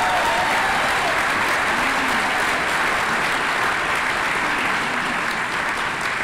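Audience applauding steadily, a dense clapping that eases slightly near the end.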